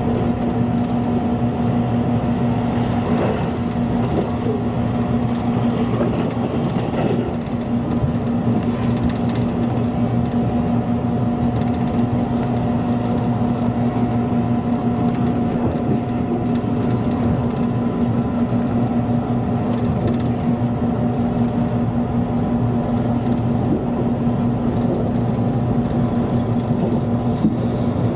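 Electric limited express train running at speed, heard from inside the passenger car: a steady rumble of wheels on rail with an even hum that holds unchanged throughout.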